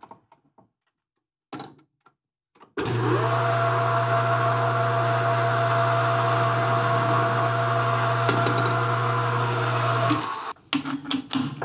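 Metal lathe starting about three seconds in and running steadily with a low hum and a steady whine while a countersink in the tailstock cuts into the end of a brass workpiece, then switching off about ten seconds in. A few sharp clicks of tool handling follow.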